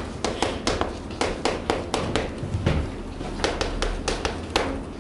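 Chalk tapping on a chalkboard while writing: quick irregular taps, several a second, with a short pause in the middle and stopping shortly before the end.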